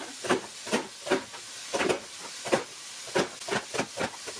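Vegetables sizzling in a frying pan with a steady hiss, overlaid by irregular knocks and clacks from a plastic Nicer Dicer Chef vegetable chopper as zucchini slices are pressed through its 12x12 mm blade grid.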